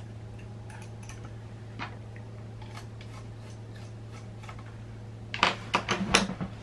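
Small clicks and light knocks from handling a partly disassembled camera and small tools, sparse at first, then a quick cluster of sharper clicks near the end, over a steady low hum.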